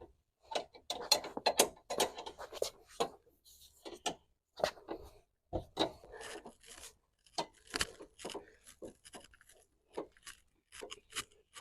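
Car jack being wound up under the car to lift it: an irregular run of small metal clicks and rasping scrapes as the jack's crank and screw turn.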